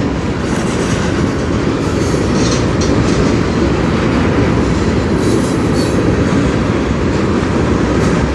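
Cars of a long, slow-moving CN manifest freight train rolling past close by: a loud, steady rumble of steel wheels on the rails.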